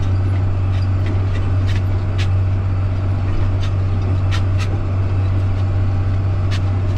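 Tractor engine running steadily at PTO speed, a loud constant low drone, while it drives a fertilizer spreader's spinners and tows the spreader. A few sharp ticks sound at irregular moments.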